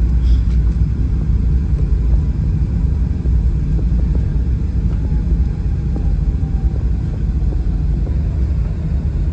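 Cabin rumble of a Boeing 737-800 rolling along the runway just after landing: its CFM56 engines and wheels give a loud, steady, deep roar that eases slightly about halfway through.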